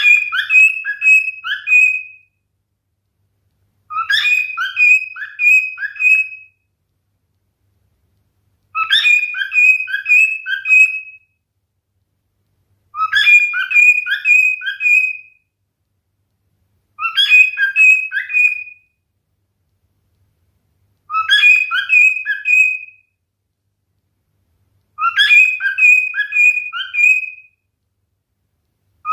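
Male cockatiel whistling the same short song phrase over and over: a quick run of four or five clear notes lasting about two seconds, repeated seven times at even gaps of about two seconds of silence.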